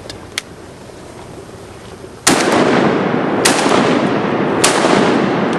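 Three shotgun blasts about a second apart, each followed by a long echo that rolls on through the flooded timber, with a small click shortly before the first.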